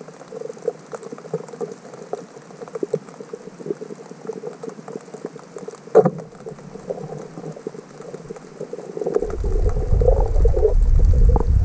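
Underwater sound picked up by a camera beneath the surface: a steady crackle of small clicks over a faint hiss, with one sharp, louder click about six seconds in. Near the end a loud low rumble with rapid pulsing comes in.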